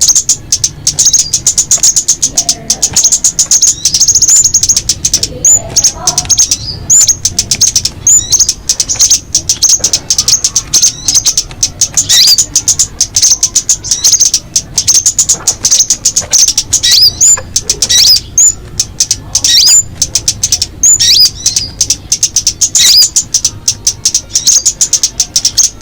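Birds chirping in a rapid, continuous, high-pitched chatter, with repeated short sweeping notes breaking through every second or two: the calls of the tía ô and ốc mít birds.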